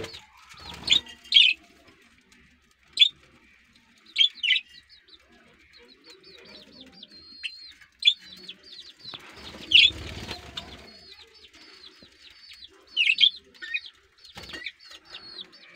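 A flock of budgerigars chattering with many quick, high chirps, with louder bursts of calls now and then, and a burst of wing flapping about ten seconds in.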